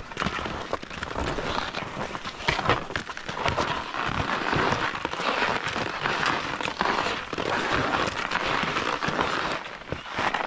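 Touring skis on climbing skins sliding and scraping over snow, with crunching, many sharp clicks and ski-pole plants, the sound swelling and easing with each stride.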